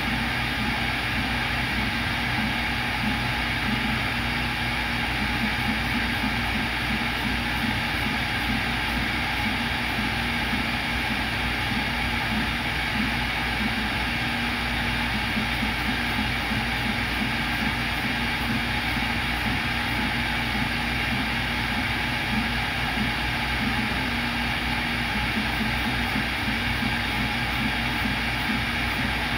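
CNC router's spindle running steadily with the machine's motors as it drills holes in a copper-clad circuit board: a constant machine whine and hum.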